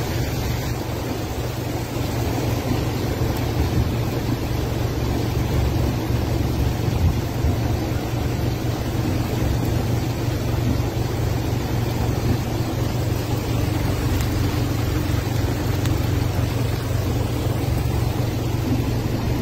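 Steady noise of a car driving, heard from inside the cabin: the engine runs and the tyres hiss on a rain-soaked, flooded road.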